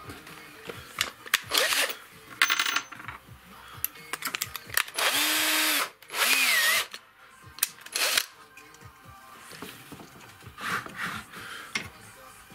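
A small electric drill runs in several short bursts, the two longest in the middle, its motor pitch sagging and recovering as the bit bites. It is drilling dowel holes into a wooden base to fix carved figures in place.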